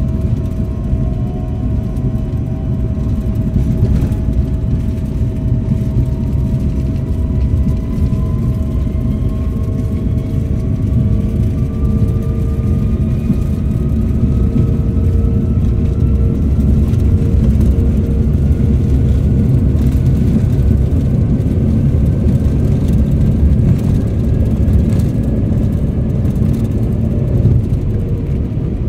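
Cabin noise of a CRJ-200 regional jet taxiing: a steady low rumble from its engines and rolling airframe, with a thin engine whine that climbs slowly in pitch.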